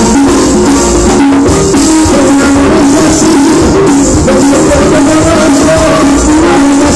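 Live tropical dance band playing a steady beat on congas and timbales under held keyboard notes.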